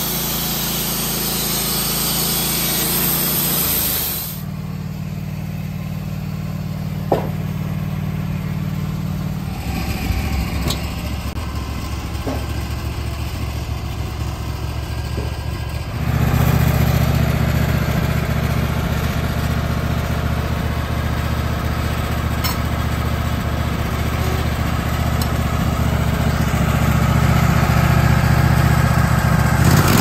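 Wood-Mizer LT15 portable sawmill's engine running while its band blade finishes a cut through a pine cant; the sawing hiss ends about four seconds in. The engine keeps running, with a few light knocks, and is louder again from about halfway.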